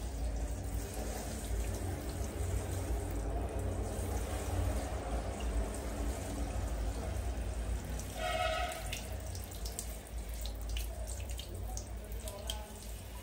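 Water spraying steadily from a handheld shower head over a wet baby monkey and splashing onto a tiled floor. A brief high-pitched cry comes about eight seconds in.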